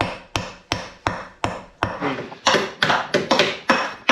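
Hammer striking metal over and over in a steady rhythm, about three blows a second, each blow ringing briefly; the blows get harder about halfway through.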